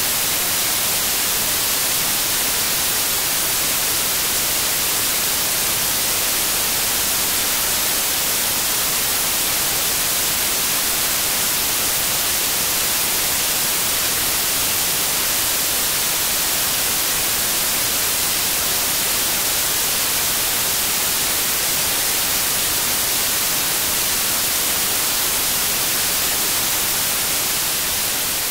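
Steady white noise: an even, featureless hiss with no tones or rhythm, beginning to fade slightly near the end.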